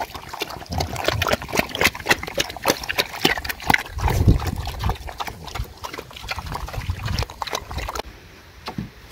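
Pigs eating wet feed: a dense run of smacking, slurping clicks, with louder low grunts about four and six seconds in.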